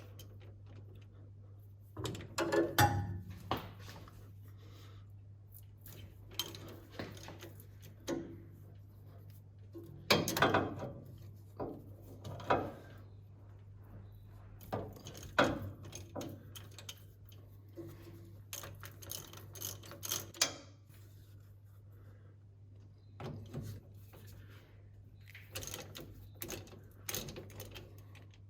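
Irregular metallic clinks and knocks of hand tools, a ratchet and socket working the bolts of a differential cover, over a steady low hum.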